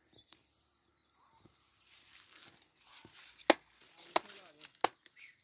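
Dry rice plants rustling, then a run of sharp, loud snaps of rice stalks close by, about one every two-thirds of a second in the second half.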